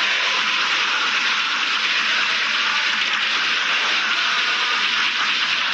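Stadium crowd noise from football supporters: a steady, even wash of cheering and chanting.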